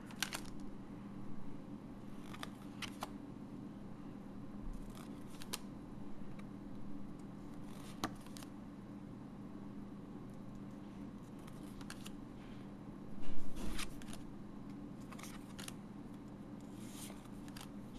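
Trading cards being handled and flipped through by hand: scattered light clicks and rustles, with a louder cluster of knocks about 13 seconds in, over a faint steady hum.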